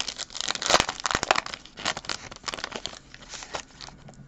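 Foil wrapper of a sports-card pack being torn open by hand and crinkled as the cards are pulled out: a rapid, irregular crackling, densest in the first two seconds and thinning out toward the end.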